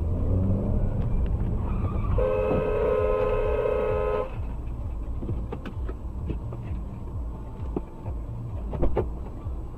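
A car horn sounds one steady blast of about two seconds, over the low rumble of engine and road noise heard inside a car's cabin. A few sharp knocks follow, the loudest near the end.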